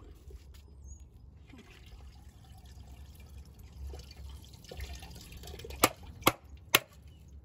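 Handling noise from a broken-open plastic handheld vacuum being dismantled, over a low steady hum. Three sharp knocks about half a second apart come near the end.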